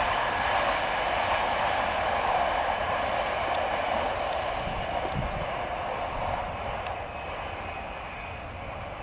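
Electric commuter train running along the track, a steady rail rumble that slowly fades as the train moves away.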